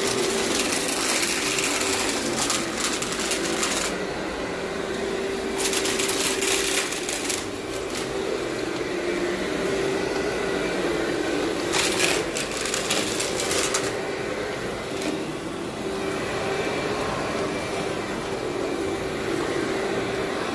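Vacuum cleaner running steadily with a constant motor tone, its hiss growing brighter in several stretches as it works over the carpet.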